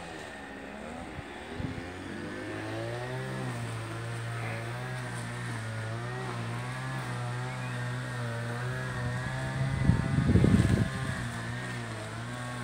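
An engine running steadily at idle. About ten seconds in there is a brief loud burst of low noise.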